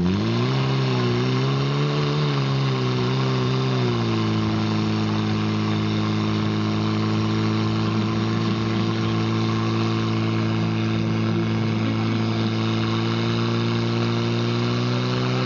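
Portable fire pump's petrol engine running hard under load, driving water out through the hoses. Its pitch wavers for the first four seconds or so, then holds a steady note.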